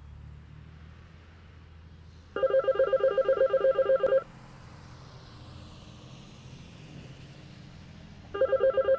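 Payphone ringing with a rapidly warbling electronic ring, one ring of about two seconds and a second ring starting about four seconds later near the end, over a low steady background rumble.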